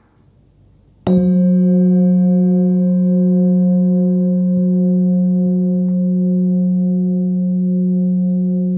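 Hand-forged Nepalese singing bowl, 19.7 cm and tuned to F# at 181 Hz, struck once with a mallet about a second in, then ringing on with a strong, steady low tone and higher overtones, one of which wavers slowly.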